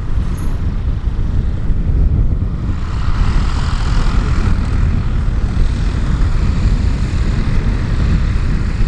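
Light propeller aircraft's engine running over a steady low rumble, growing louder from about three seconds in and easing off after about six.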